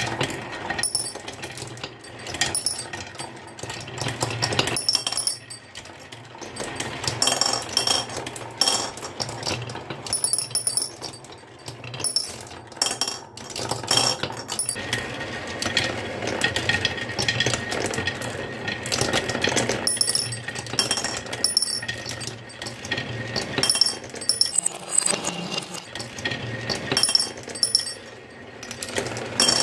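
Radio-controlled model construction machines working: small electric motors and gearboxes whirring, with frequent metallic clinks and rattles of the moving parts and their load.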